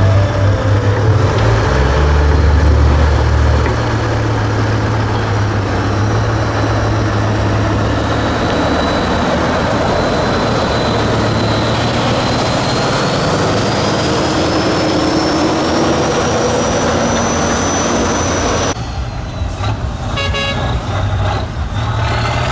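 Heavy diesel engine of an off-road trial truck working under load as it crawls over dirt mounds. It has a deep engine note for the first few seconds, then a rougher sound with a thin high whistle slowly rising in pitch. About three-quarters through, the sound cuts abruptly to a quieter, different mix of vehicle noise.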